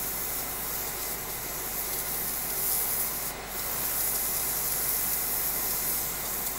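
Spotting-table gun hissing steadily as it jets onto a wet, peroxide-spotted patch of a garment, with a brief drop about three and a half seconds in.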